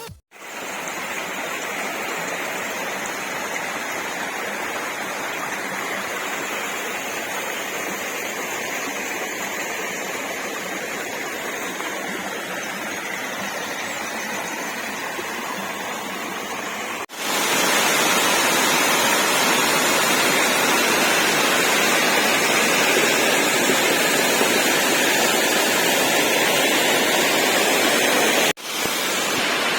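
Waterfall: a steady rush of falling water. It cuts off abruptly twice, about 17 seconds and 28 seconds in, and is louder after the first break.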